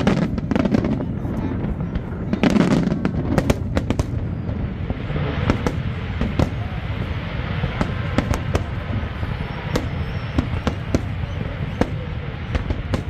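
Aerial fireworks display: shells bursting in quick, irregular succession with sharp reports and low booms. From about five seconds in a dense crackle fills the gaps between the bangs.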